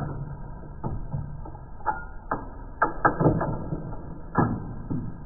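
Chain breaker tool pressing a pin out of a roller chain: a string of irregular metal clicks and knocks, about nine, bunched in the middle of the stretch, over a steady muffled hum.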